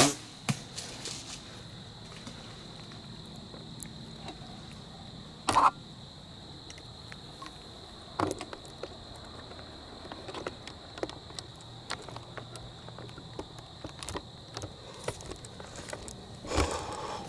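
Quiet woods ambience: a steady high-pitched whine over faint hiss, with scattered small rustles and clicks and a few louder crackling rustles, one near the start, one about five seconds in, one about eight seconds in and one near the end.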